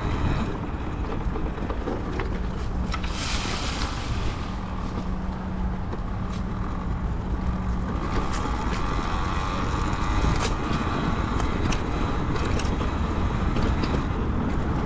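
Talaria Sting R electric dirt bike riding along: steady rumble of the new off-road rear tire rolling and wind on the microphone, with a faint steady whine and scattered small clicks.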